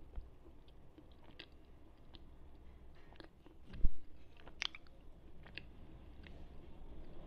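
Slate pencil being chewed, with scattered sharp crunches as the chalky pieces break between the teeth. A single low thump a little before four seconds in is the loudest sound.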